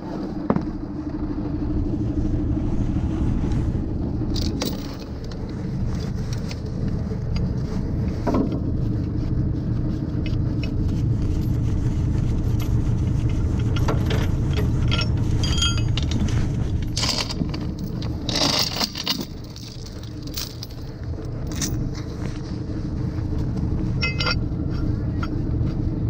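Heavy truck diesel engines running steadily, with scattered short metallic clinks and scrapes over them, more of them in the second half.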